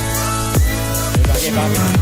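Background electronic music with a steady beat of deep kick drums that fall in pitch, under held synth chords.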